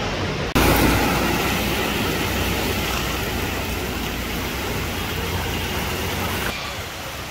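Flooded-street ambience: water sloshing and splashing around wheels wading through it, mixed with traffic noise, a steady rushing hiss. It jumps louder about half a second in and drops back near the end.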